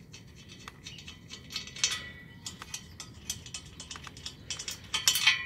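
Irregular light metallic clicks and scrapes as the steel bolts holding the fan blade to the fan clutch hub are backed out, with a denser run of clicks about two seconds in and again near the end.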